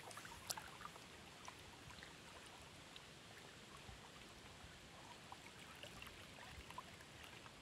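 Faint lapping of small waves against a stony shore: a soft steady wash with scattered small splashes and ticks, one sharper tick about half a second in.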